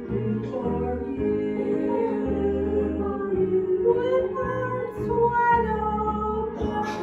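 A woman singing into a microphone over an instrumental accompaniment, her voice holding and gliding between sustained notes above steady bass notes.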